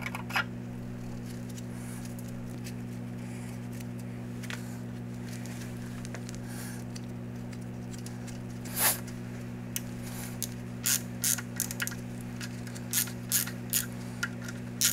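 Hand ratchet clicking in short runs while bolting a Stewart water pump onto a BMW M50 engine block, the clicks starting about halfway through, over a steady low hum.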